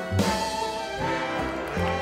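Instrumental band music: held notes over a pulsing bass line.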